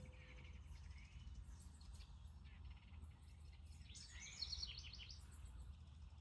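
Faint backyard birdsong: high thin chirps and trills repeat throughout, and about four seconds in a house wren gives its rapid, bubbling, falling song.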